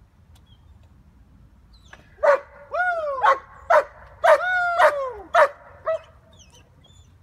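A dog barking, a run of about eight loud barks starting about two seconds in, some short and sharp, others longer yelping barks that rise and fall in pitch.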